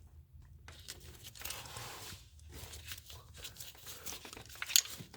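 Small scrapes and clicks of a metal pick tool and fingers working at a plastic fuel injector connector, with one sharper click near the end.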